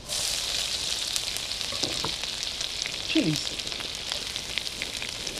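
Garlic and ginger frying in hot oil: a steady sizzle full of small crackles and spits, which starts suddenly as the ginger goes into the oil.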